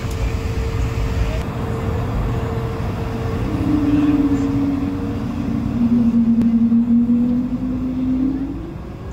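Airbus A220-300 cabin on the ground, with the Pratt & Whitney PW1500G engines running at idle as a steady low rumble. A humming tone comes in a few seconds in, drops in pitch about halfway, and stops near the end.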